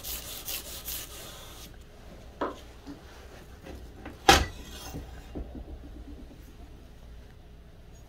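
Hand sanding of a steel knife blade cut from a circular saw blade: abrasive paper rubbed back and forth across the flat in quick scraping strokes, about four a second, which stop a little under two seconds in. Then a knock and, about four seconds in, a louder sharp clack as the blade and tools are handled.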